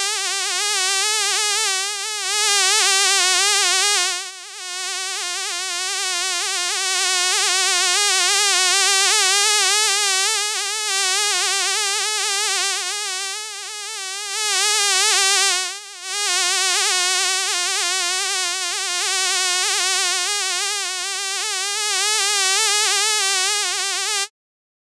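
Fly buzzing in flight: a continuous, high, wavering buzz that wobbles rapidly in pitch, dips briefly twice and cuts off suddenly near the end.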